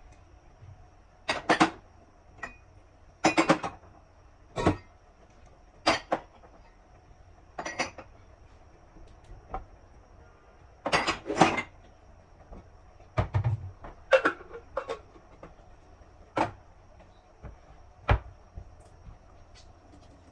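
Kitchen clatter: separate knocks and clacks of dishes and cupboards being handled, one every second or two, over a faint steady hum.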